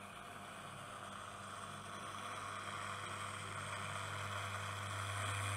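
Wahl Balding Clipper, an electric hair clipper, buzzing steadily with a low hum as its blade shears short hair close to the scalp. The buzz grows gradually louder.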